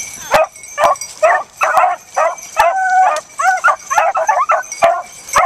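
Beagles yipping and whining in quick short cries, about two a second, with one longer held note about three seconds in. A few sharp clicks sound among the cries.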